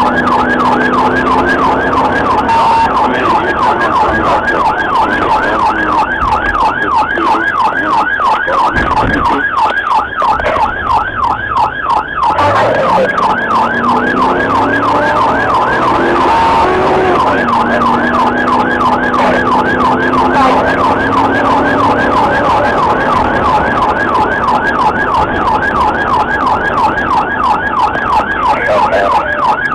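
Police car siren on a fast yelp, its pitch sweeping rapidly up and down without a break, with the pursuing cruiser's engine and road noise beneath.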